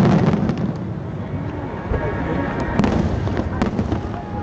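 Aerial fireworks bursting overhead: the rumble of a big boom dies away at the start, then sharp cracks go off about three seconds in, with crowd voices underneath.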